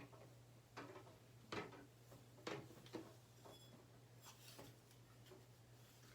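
Near silence: a steady low hum with a handful of faint, short clicks and rustles about a second apart over the first few seconds, from hair and a curling iron being handled.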